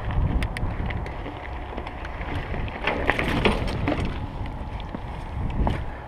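Trek Remedy 8 mountain bike rolling over rough dirt and gravel: the tyres crunch and the bike rattles with sharp clicks over the bumps, louder and rougher about three seconds in. Wind buffets the microphone throughout.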